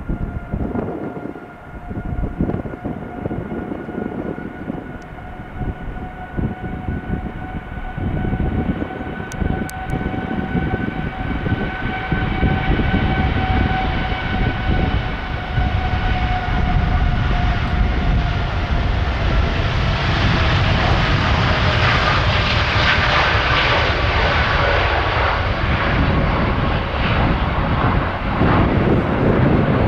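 Boeing 787 jet engines at takeoff thrust during the takeoff roll and liftoff: a steady whine of several tones that rises slightly in pitch and then drops as the aircraft passes, over a low rumble. It grows louder and turns into a broad roar with crackle about two-thirds of the way through as the jet lifts off and climbs away.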